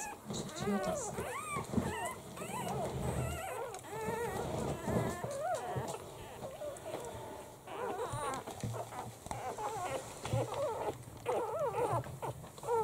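Newborn Italian greyhound puppies crying: many short, high, rising-and-falling cries overlapping one another, easing off for a moment about six seconds in before starting up again.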